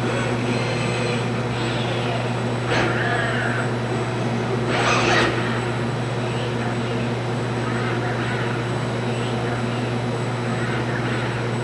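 Steady machinery hum and air noise of a robotic paint spray booth while the robot sprays a panel, with two brief louder rushes of noise about three and five seconds in.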